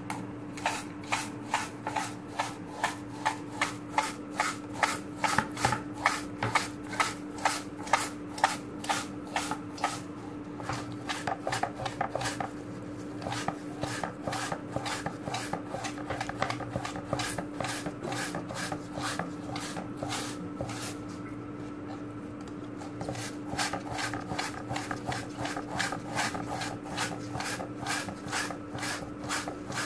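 A knife blade scraping the skin of a stinging catfish against a cutting board in rhythmic strokes, about two a second, with a short pause about twelve seconds in and a lull shortly after twenty seconds.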